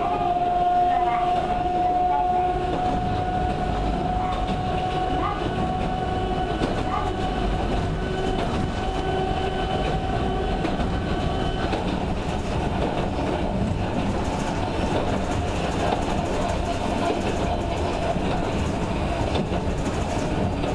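Sangi Railway Hokusei Line 270-series narrow-gauge electric train running, heard from inside the car. A steady motor whine fades out about halfway through, leaving the rumble and rail noise of the wheels on the track.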